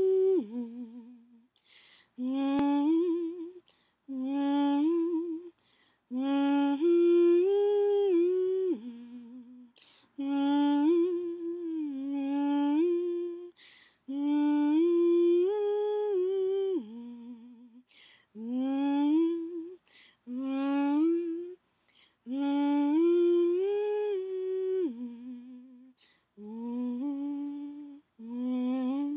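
A person humming a slow, wordless original melody, in short phrases of a few stepped, held notes with brief pauses between them.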